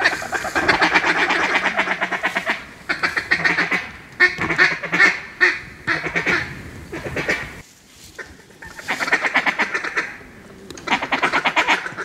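Rapid, excited duck quacking in fast runs of one to two seconds, separated by short pauses, with a quieter lull about two-thirds of the way through.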